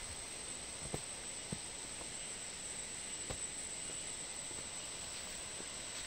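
A steady, high-pitched drone of forest insects over a soft hiss, with a few soft footsteps on a dirt trail, about four in all.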